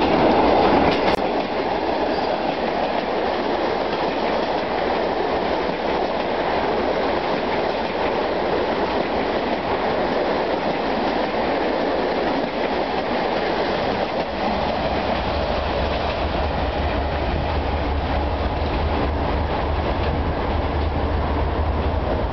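Passenger coaches of a diesel-hauled train rolling past close by, a steady rumble with the clickety-clack of wheels over rail joints. About two-thirds of the way through, a deep steady hum joins it.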